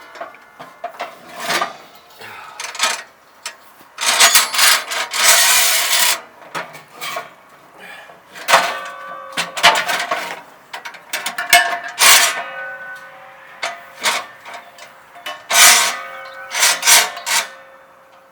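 Irregular knocking, scraping and clattering of hard objects, some hits leaving a short metallic ring.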